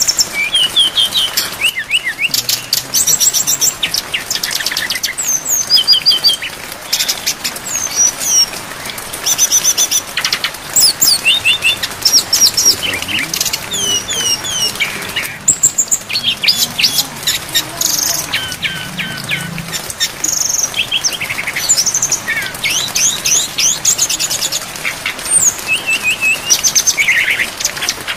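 Brown-chested jungle flycatcher singing a continuous, varied song of fast trills, repeated chips and rising and falling whistles, over a steady hiss of rain.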